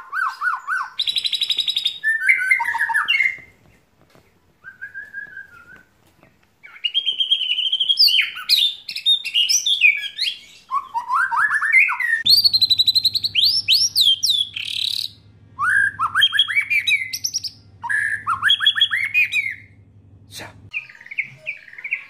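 White-rumped shama singing a long, varied song of loud whistled phrases, slurred notes and rapid trills, in bursts with short pauses. Its song is filled with imitations of lovebird, canary and cililin calls. A low steady hum joins about twelve seconds in and stops shortly before the end.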